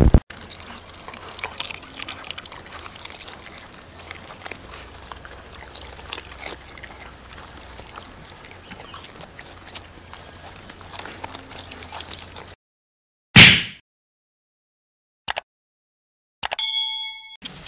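Puppies chewing and lapping wet food: a long run of faint, irregular wet clicks and smacks. It stops suddenly. Then come a loud whoosh, a short click and a bell-like chime, the sound effects of a subscribe-button animation.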